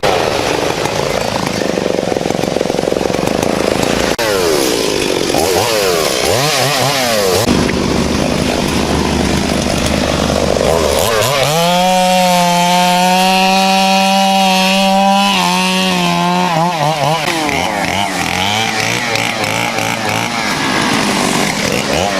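Two-stroke chainsaw cutting a fallen tree. The engine speed rises and dips as the chain bites, then holds steady at high revs for about five seconds in the middle.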